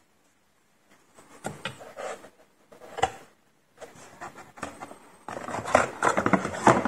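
Handling and unpacking noises: irregular rustling and rubbing with light knocks. They start after about a second of quiet and grow denser and louder from about five seconds in.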